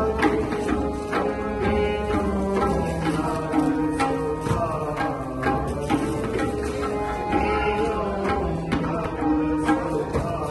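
Background music with sustained held tones and a steady hand-drum beat.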